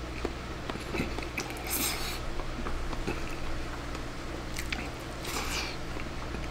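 Person eating a bowl of egg over rice topped with tempura bits: chewing with small mouth clicks, and twice a short airy slurp as a mouthful is drawn in off the chopsticks.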